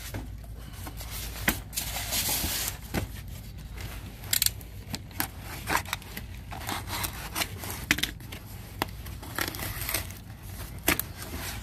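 Cardboard shipping boxes being handled and slit open with a box cutter: a run of scrapes, knocks and rustles of cardboard and packing tape, with a longer rustling stretch a couple of seconds in.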